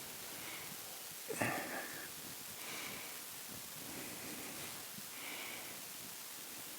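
Steady hiss with a single sharp knock about a second and a half in, and several short, soft breathy sounds.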